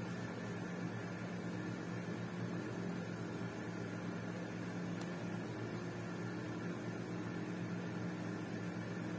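Steady low electrical hum with an even hiss, unchanging throughout: background appliance or mains hum in the room.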